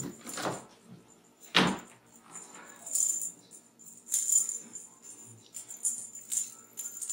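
Small bells on a dangled cat toy jingling in short irregular shakes, with one louder thump about one and a half seconds in.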